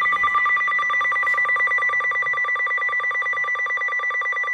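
Emergency alert attention tone: a loud electronic tone of several steady pitches, pulsing rapidly and evenly. It is the signal that announces an emergency broadcast, here a National Weather Service severe thunderstorm warning.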